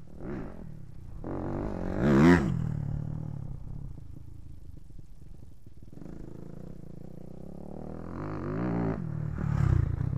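Suzuki RM-Z250 four-stroke single-cylinder dirt bike engine revving hard with rising pitch, loudest about two seconds in, then dropping back and revving up again to a second peak near the end as the bike comes close.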